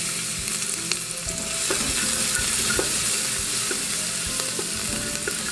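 Minced garlic sizzling steadily in hot olive oil in an aluminium pressure cooker as it is stirred, with a few light clicks scattered through the sizzle.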